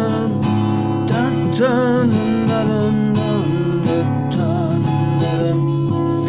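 Instrumental music: acoustic guitar strumming chords under a melody line with vibrato.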